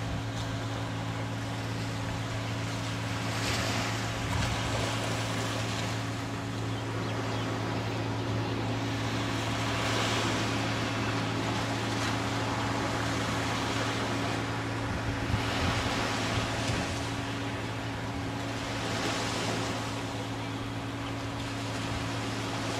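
Beach ambience of ocean surf and gusty wind on the microphone: a rushing noise that swells and fades every few seconds over a steady low hum.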